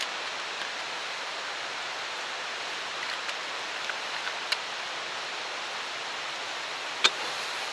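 Steady rushing background noise with a few faint clicks, and one sharper click about seven seconds in.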